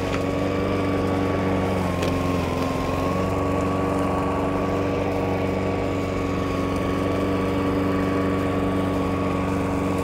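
Hyundai petrol lawn mower running steadily at one pitch, pushed over loose cut grass and vacuuming it up into the grass catcher.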